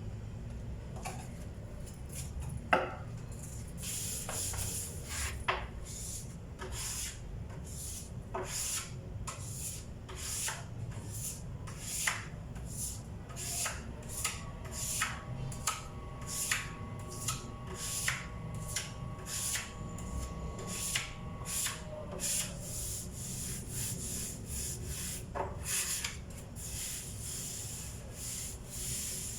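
Sandpaper rubbed back and forth by hand over a table's surface, in short, even strokes about two a second, which run into a more continuous rub near the end. A single sharp knock comes a few seconds in, and a faint steady hum sounds for several seconds midway.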